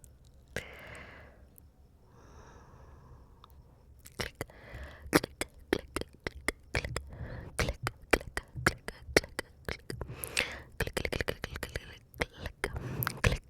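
ASMR mouth sounds: two soft, breathy exhalations, then from about four seconds in a fast, irregular run of wet mouth clicks and tongue pops.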